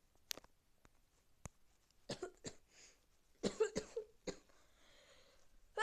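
A person with a cold giving a few short, quiet coughs and throat noises in two small clusters, with a few faint clicks before them.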